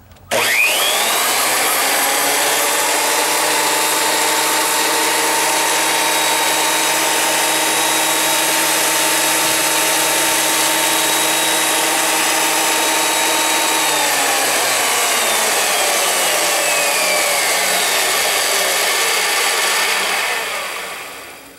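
Delta 12-inch portable planer's motor and cutterhead switched on, whining up to speed within about a second and running steady with no load. About two-thirds of the way through the pitch starts to fall as it spins down, and the sound dies away near the end.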